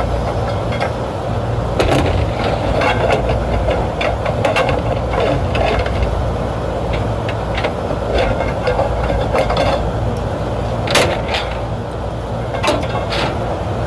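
Scattered sharp metal clicks and knocks from hand-tool work on a rooftop unit's condenser fan assembly, the loudest one a little before the end, over a steady low machinery hum.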